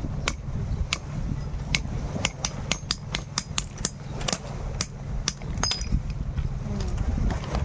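Claw hammer knocking on the hard shells of bagungon snails to crack them open: a run of sharp, irregular knocks, several a second at times. A low steady rumble runs underneath.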